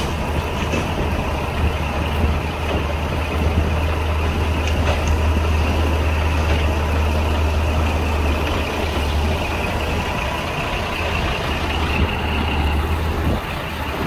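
Heavy diesel engine running steadily, a deep low drone with a faint steady whine above it.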